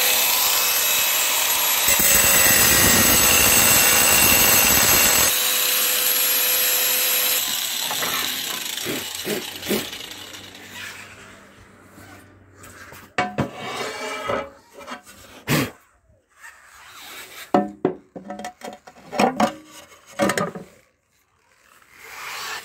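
Angle grinder cutting a ceramic floor tile: a harsh gritty noise over a steady motor tone for about five seconds, then dying away over the next two. After that come scattered knocks and scrapes of the tile pieces being handled.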